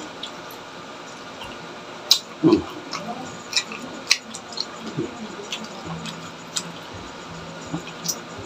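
Wet eating sounds: scattered sticky smacks and clicks of fingers pulling apart sauce-covered cooked octopus and of chewing, with a couple of brief low hums from the eater.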